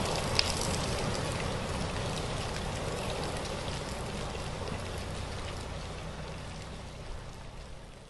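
Heavy rain falling steadily, with a low rumble underneath, fading out gradually over the last few seconds. A single sharp tick about half a second in.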